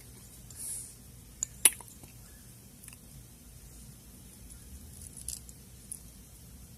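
A few small sharp metallic clicks, two close together about one and a half seconds in the loudest, with a soft rustle or two: padlock pins dropping out of the lock cylinder onto the bench as the lock is gutted.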